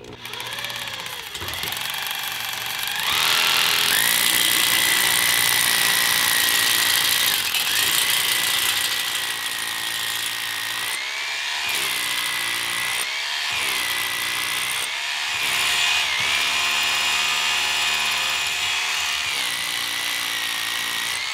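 Bosch Bulldog hammer drill boring into a concrete floor with a masonry bit: a loud motor whine with hammering rattle. It builds up over the first three seconds, then its pitch sags and recovers several times midway as the bit bites.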